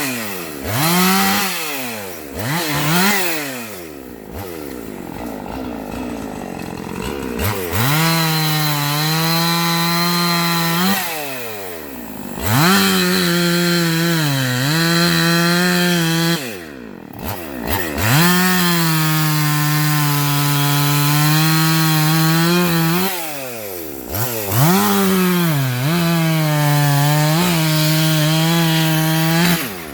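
Husqvarna two-stroke gas chainsaw revved in quick blips, idling briefly, then held at high revs cutting through wood in four long runs. The engine pitch sags under load in places and drops back between cuts.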